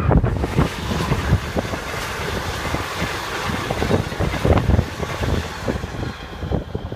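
Comeng electric suburban train passing at speed: a steady rush of wheels on rail, with a quicker run of wheel clacks over the rail joints between about four and six seconds in as the rear cars go by. Wind buffets the microphone throughout.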